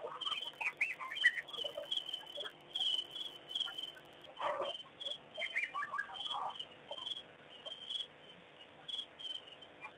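Dusk chorus: a high chirping repeats about three times a second, with birds calling over it in short falling notes.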